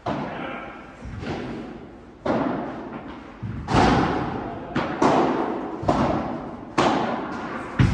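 Padel rally: the ball struck by solid padel rackets and bouncing off the court and glass walls, a sharp knock about once a second, each echoing through a large hall.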